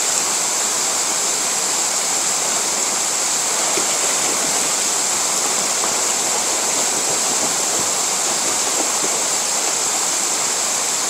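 Waterfall's water rushing steadily, an even, unbroken hiss with no pauses or changes.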